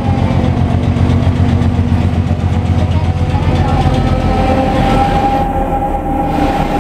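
ČD class 742 diesel locomotive with its ČKD six-cylinder engine running loud as it passes close, a dense low rumble. From about four seconds in, a steady high whine rises over the engine sound.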